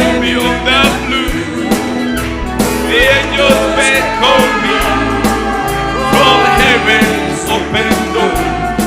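Country-style gospel song: singing held on long, wavering notes over a steady instrumental backing with bass.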